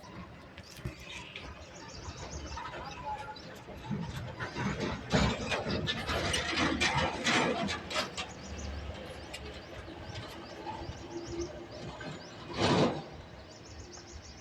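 Birds chirping and calling, busiest in the middle, with one short, louder call about twelve seconds in.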